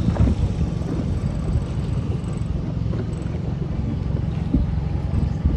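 Small outboard motor on a dinghy running steadily under way, heard from aboard.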